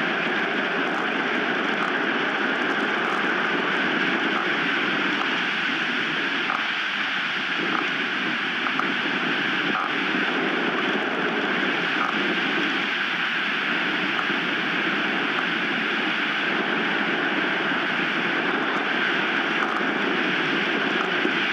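Strong wind blowing over the nest-cam microphone: a steady, continuous rushing noise with no breaks.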